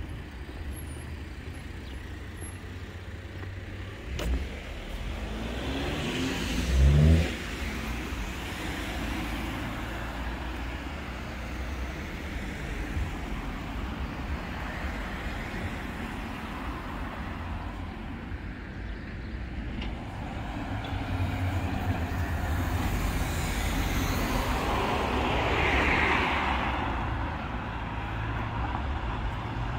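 Road traffic: a steady low rumble of passing vehicles. One goes by close about seven seconds in with a brief sweep in pitch, and another swells past and fades about three-quarters of the way through.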